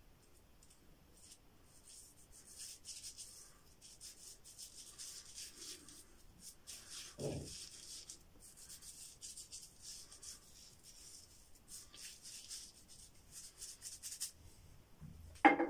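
Fingertips rubbing Mitchell's Wool Fat shaving lather into facial stubble: a soft, patchy hiss that comes and goes. A brief louder sound breaks in just before the end.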